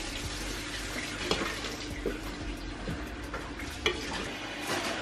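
A metal spoon folds cooked biryani rice in a large pot, making a steady scraping and rustling of rice, with a few light knocks of the spoon against the pot.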